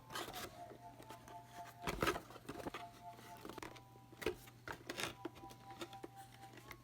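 Scattered small plastic clicks and taps as a GoPro Hero 5 is handled and unscrewed from its packaging, the loudest knock about two seconds in. A faint steady hum and faint steady tones run underneath.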